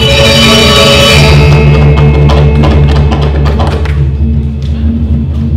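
Balinese gong kebyar gamelan playing loud: deep bronze gongs and low metallophones pulse about four times a second under a bright ringing of high metallophones. The high ringing thins out about four seconds in, leaving the low pulse and sharp percussive strokes.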